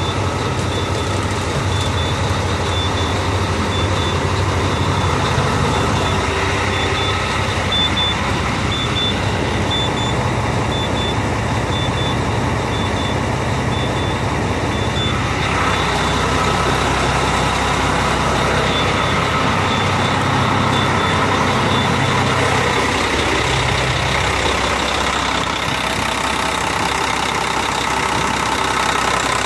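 Volvo semi-truck diesel engine idling steadily, with a row of short high warning beeps, about one a second, that stop about halfway through.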